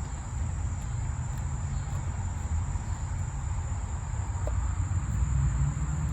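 Steady, unbroken high-pitched trill of crickets over a continuous low rumble.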